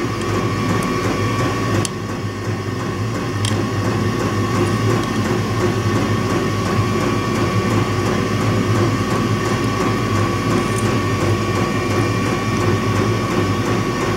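Hand-held electric heating gun held on a wire terminal to melt solder, giving a steady hum with a thin high whine.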